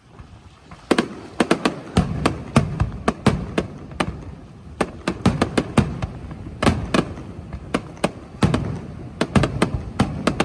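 Fireworks display: a rapid, irregular string of sharp bangs and cracks from bursting shells, starting about a second in, with a low rumble between the reports.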